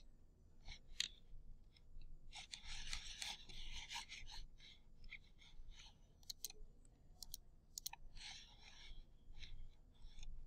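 Faint clicking of a computer mouse, with two stretches of soft rubbing noise, one a couple of seconds in and one near the end.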